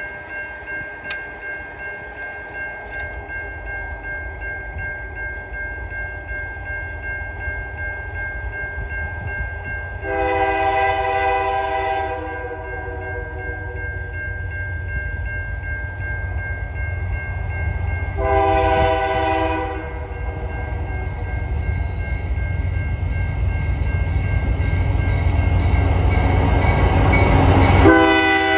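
Approaching CN freight train: the lead diesel locomotive's air horn sounds two long blasts about eight seconds apart while the low rumble of the train grows steadily louder. A third horn blast starts near the end as the locomotives pass close by.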